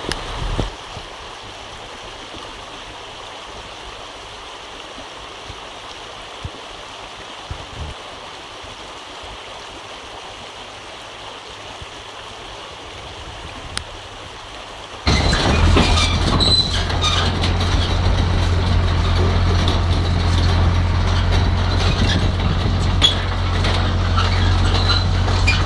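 Faint steady background noise, then about fifteen seconds in a loud, steady, low machine drone with rattling cuts in abruptly.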